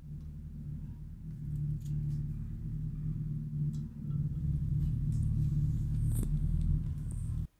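A low, uneven rumbling hum with a few faint light clicks as ice cubes are dropped into a glass of sharbat; the sound cuts off suddenly near the end.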